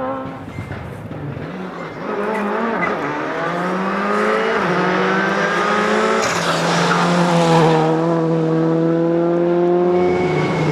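Rally car engine accelerating hard: the revs dip briefly, then climb steadily before being held high. Tyre noise sounds partway through.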